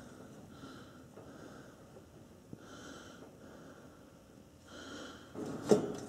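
Soft, slow breaths, about four of them, close to the microphone, with a short louder rustle near the end.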